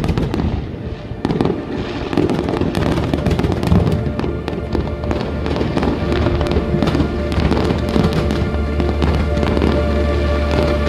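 Fireworks display going off in rapid succession, a dense run of bangs and crackles, with music playing alongside.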